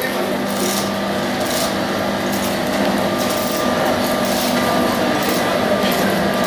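Large open forge fire burning steadily under a steel plate being heated for flanging, with a steady machine hum beneath and a few light knocks.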